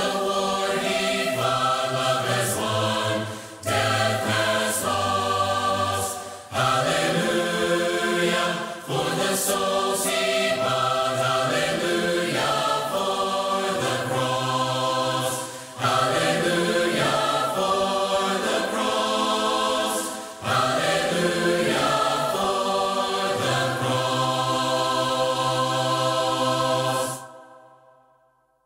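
A cappella vocal ensemble singing a hymn in four-part harmony, phrase by phrase with short breaths between, ending on a long held chord that dies away near the end.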